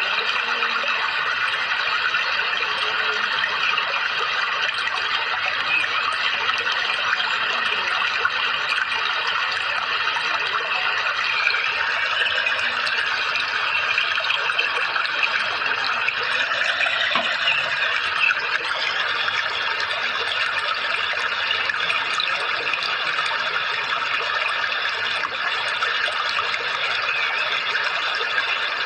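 Steady running water, a dense even rush with no break or change in level.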